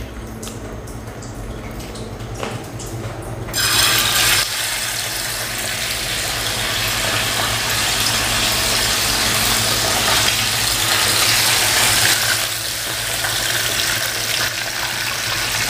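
Chicken legs frying in hot oil in a small wok: a steady sizzle with crackles, which suddenly gets much louder about three and a half seconds in and stays loud.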